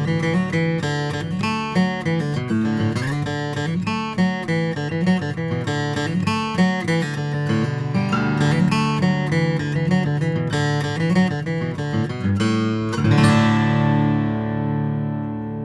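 Martin M-36 jumbo acoustic guitar, with its Sitka spruce top and rosewood back and sides, played solo in a fast run of picked notes. A final strummed chord about 13 seconds in rings out and slowly fades.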